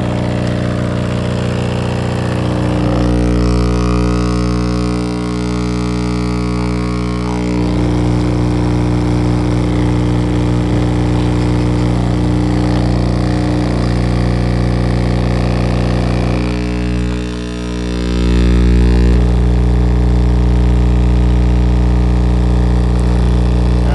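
Two Sundown E8 car-audio subwoofers driven straight from a 120-volt wall socket, giving out a loud, steady mains hum with a buzzy stack of overtones. The tone shifts a few times, dips briefly about seventeen seconds in, then comes back a little louder.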